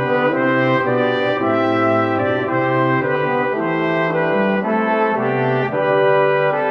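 Brass music: several horns holding chords, the notes changing every second or so.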